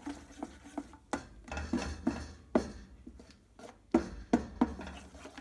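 Silicone spatula stirring melted white chocolate in a stainless steel bowl over a double boiler, scraping and knocking against the bowl with irregular clinks, a few of them sharper.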